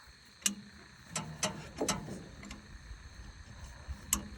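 Hand fuel primer pump on a Cummins diesel being pushed to prime a new fuel filter: a handful of sharp, irregular clicks and knocks.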